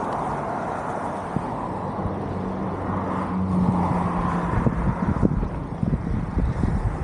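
Small remote-controlled car driving over street pavement: a steady motor hum with rattling knocks from the wheels and body on the rough surface, growing busier in the second half, with wind on the microphone.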